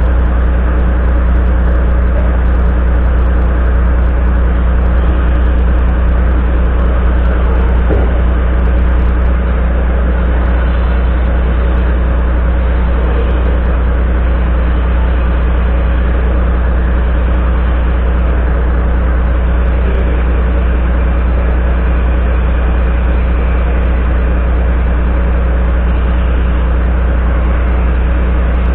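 Volvo FMX 440's 13-litre six-cylinder diesel engine idling steadily, heard close to its vertical exhaust stack, with a strong low hum.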